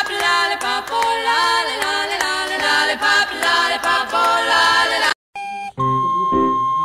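Music with singing voices, which cuts off suddenly about five seconds in. A different piece of music follows, with a held high note over short low notes.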